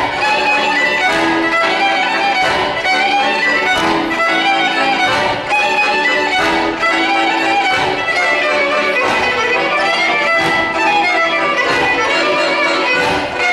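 Romanian folk dance music led by a fiddle, with a steady beat.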